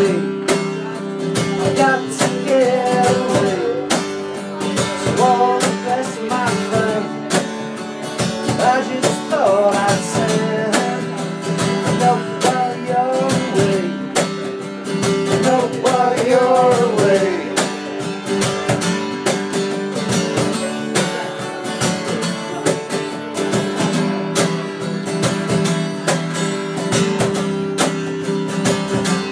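Acoustic guitar strummed in a steady rhythm, with a man singing over it for roughly the first half; after that the guitar plays on alone.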